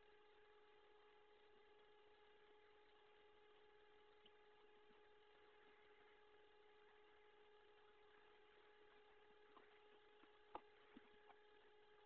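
Near silence: a faint, steady electrical hum, with a few faint clicks near the end.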